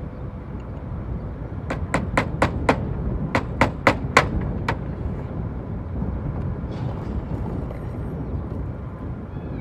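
Slater's hammer striking while round slates are fixed to a chimney: a quick run of five sharp strikes, then four more, then a single last tap, about four a second.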